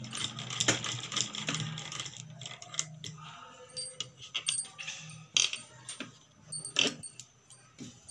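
Sewing machine stitching a lace border onto fabric: a steady hum with a fast rattling clatter for the first three seconds or so, then it stops. Scattered sharp clicks and taps follow as the fabric is turned under the needle.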